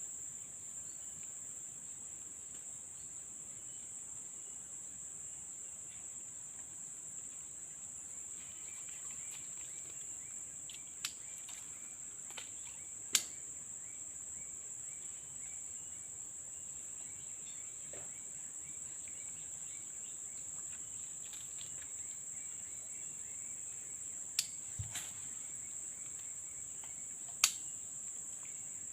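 A steady, high-pitched insect chorus of crickets or cicadas keeps up throughout, with fainter chirping in places. Several sharp clicks stand out over it, the loudest about halfway through and near the end.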